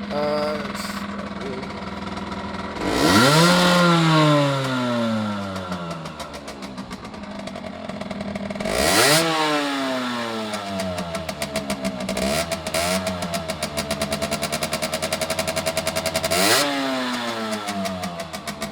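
Aprilia RS50's 50cc two-stroke single-cylinder engine idling and revved three times, each rev rising quickly and falling slowly back to idle, with the engine held at raised, pulsing revs for a few seconds before the last one. The owner says it is running a bit poor.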